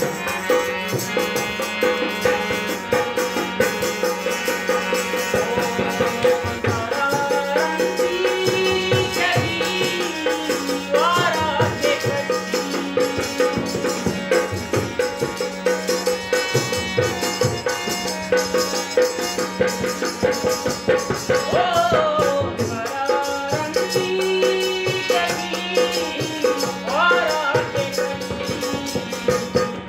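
Harmonium playing a folk melody over a held drone, with a dholak hand drum keeping a steady quick rhythm beneath it.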